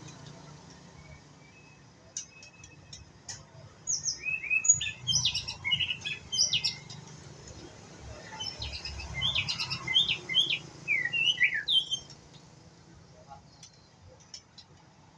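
White-rumped shama singing: two bursts of quick, varied whistled phrases, about four seconds in and again about nine seconds in, each lasting two to three seconds, with a few scattered chirps before them. The bird is still learning its song.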